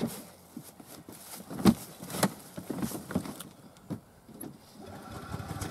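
Scattered knocks and clunks as a person climbs into a golf cart's seat and works the pedal and steering wheel, one louder thump less than two seconds in. Near the end the cart's drive motor starts up with a steady whine.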